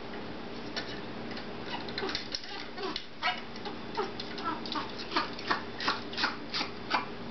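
A series of short sharp clicks and taps from an African grey parrot as it moves along a wooden ladder, sparse at first and then about three a second in the second half.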